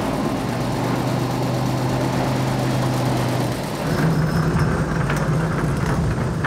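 Truck engine idling with a steady hum; its pitch steps up slightly a little past halfway through, then holds steady again.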